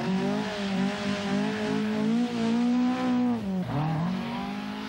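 Opel Manta 400 rally car's four-cylinder engine running at high revs under hard driving, its note wavering as the throttle is worked. About three and a half seconds in the note dips away and a second Manta's engine takes over.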